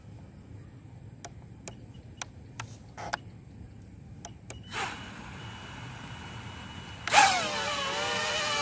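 A few sharp clicks, then the small FPV quadcopter's brushless motors start and spin quietly at idle. About seven seconds in they throttle up sharply into a loud, wavering propeller whine as the quad lifts off to hover.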